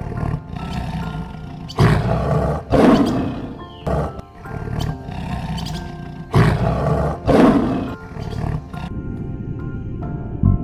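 A large animal gives loud, rough roaring calls in two pairs, each pair about a second apart, over steady background music.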